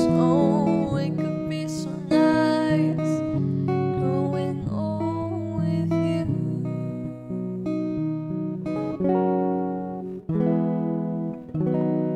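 Electric guitar strumming slow, clean chords with a girl's voice singing along in places. Near the end a final chord is struck and left to ring and fade.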